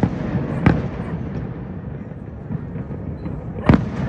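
Distant aerial fireworks shells bursting: a sharp bang right at the start, another under a second in, and a third near the end, over constant background noise.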